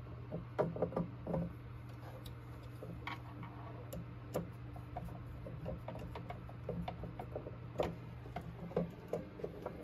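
Irregular small metallic clicks and taps of a screwdriver and screws being worked at the terminals inside a Sol-Ark 12K inverter cabinet, over a steady low hum.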